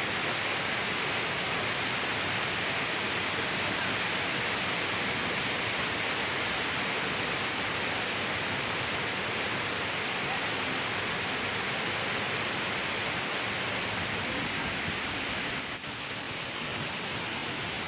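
Waterfall: a steady, even rush of falling water. Near the end the sound dips briefly and then carries on slightly changed, as at a cut between two shots.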